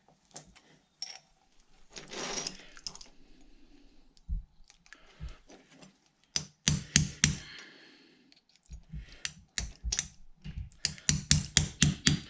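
Roller chain being shortened with a chain breaker tool: a string of sharp metal clicks and taps, sparse at first, then quicker and louder in the second half at about four or five a second.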